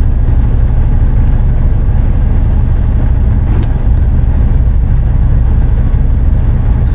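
Ford F-250 Super Duty's 6.7-litre diesel engine running as the truck rolls slowly, a loud steady low rumble heard from inside the cab.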